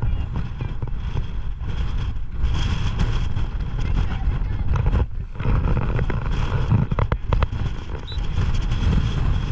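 Strong wind buffeting the camera microphone, a loud, uneven low rumble that swells and dips in gusts.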